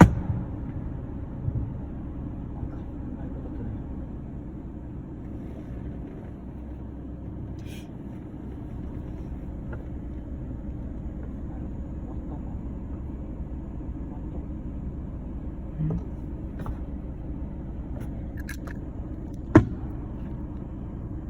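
Steady low rumble of a motor vehicle's engine, with a sharp click right at the start and a louder one near the end.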